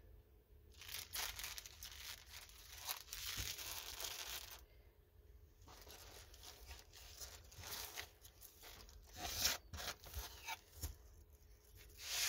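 Plastic packaging of a diamond painting kit crinkling and rustling as it is handled, in several bursts with a short lull about five seconds in.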